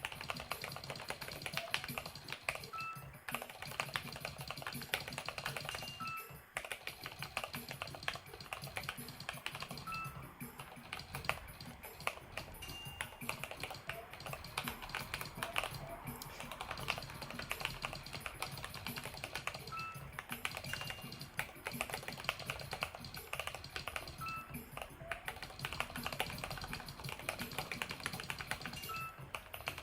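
Continuous typing on a Keychron mechanical keyboard: a fast, steady stream of key clicks, over background music.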